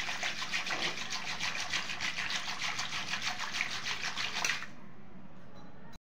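Wire whisk spun back and forth between the palms, churning malai (milk cream) with lukewarm water in a steel bowl: a fast, even swishing and sloshing as butter starts to separate out at the sides. It stops about four and a half seconds in, leaving a faint steady hiss.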